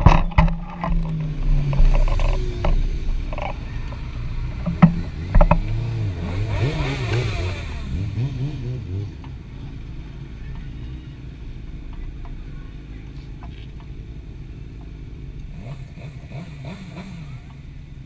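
Low rumble of engines and road traffic around a motorcycle that has just crashed. Scattered knocks and clatters come in the first several seconds as the fallen sport bike is handled and lifted, with a louder passing swell around the middle. The sound then settles to a steady, quieter rumble.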